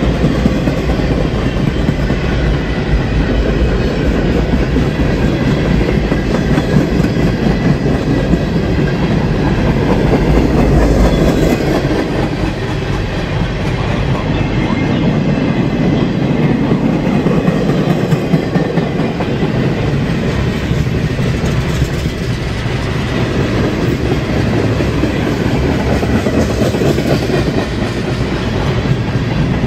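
Freight train cars rolling past at close range: a steady rumble of steel wheels running on the rails, boxcars at first, then a string of tank cars after a slight change in the sound about twelve seconds in.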